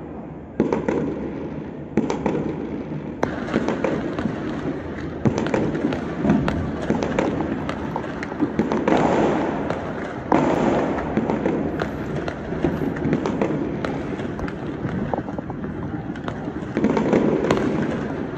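New Year's fireworks and firecrackers going off across a city: a steady run of sharp bangs and crackling, with louder booms breaking in every few seconds.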